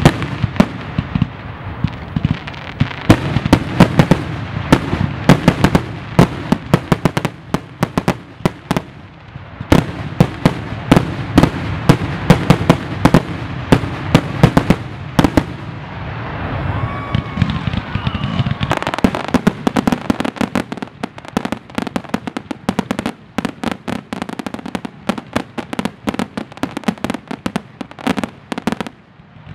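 Fireworks finale: aerial shells bursting in quick succession, several sharp bangs a second over a continuous rumble. From about two-thirds of the way through, the bangs come even thicker, with more crackle.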